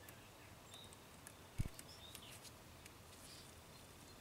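Quiet outdoor background with a few faint, short bird chirps and light ticks, and a single soft low thump about one and a half seconds in.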